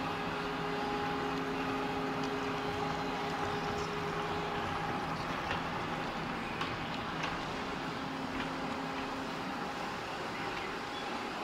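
Steady hum of a model railway layout running in an exhibition hall, with several held tones, some stopping about halfway through, over a background hiss and a few faint clicks in the middle.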